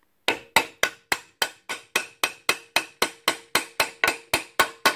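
A hammer tapping a bearing home in a miter saw's housing: an even run of sharp strikes, about four a second, with a faint metallic ring that builds under them and lingers after the last tap.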